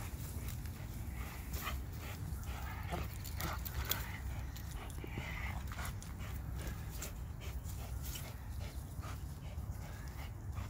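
A dog panting and making small vocal noises as it bites and tugs at a helper's protective sleeve, with scattered short clicks and rustles over a steady low rumble.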